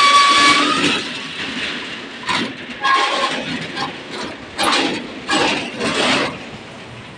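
Corrugated metal roll-up shop shutter being pulled down and pushed shut with a foot, its slats rattling and scraping in its guides. It opens with a high squeal, then several separate scraping rattles as it is pushed lower.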